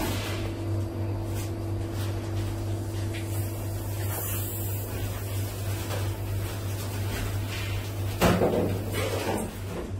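Boning knife and meat handled on a plastic cutting board: soft knocks and scrapes, with a louder pair of knocks about eight seconds in, over a steady machine hum whose higher tone stops at that moment.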